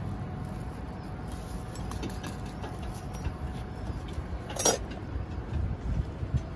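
Steady low rumble of outdoor street background noise, with faint scattered ticks and one sharp click about four and a half seconds in.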